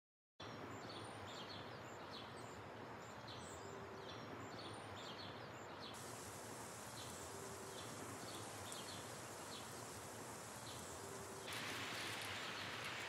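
Outdoor ambience: a faint steady hiss with short high chirps repeating every half second or so. Near the end a louder rushing hiss comes in.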